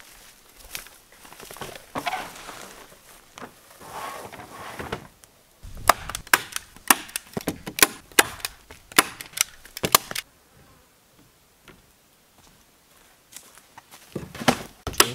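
A roll of black roofing membrane rustling and crinkling as it is unrolled and handled. Then a quick run of about a dozen sharp snaps, roughly two a second, from about six to ten seconds in, and a few more near the end.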